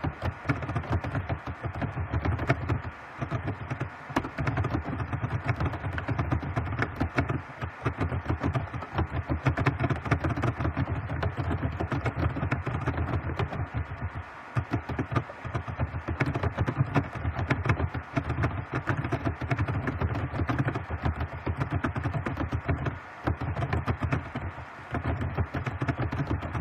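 Fast typing on a computer keyboard: a rapid, continuous run of keystrokes with a few short pauses.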